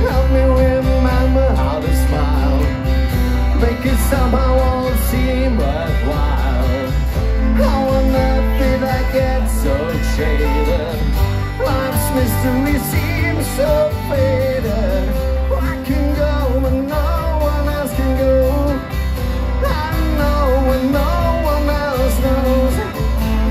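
Live acoustic band playing: several steel-string acoustic guitars strummed over an upright double bass, with a sung melody and a steady beat.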